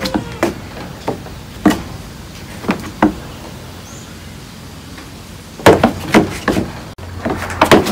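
A goat's hooves knocking on wooden deck planks as it hops about on its hind legs. Scattered single knocks come first, then a quick run of clattering knocks about six seconds in and another near the end.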